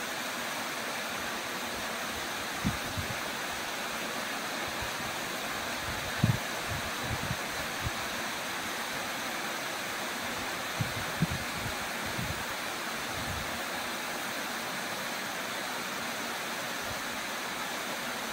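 Waterfall spilling down a granite rock face into a plunge pool: a steady, even rush of falling water. A few brief low thumps stand out about 3, 6 and 11 seconds in.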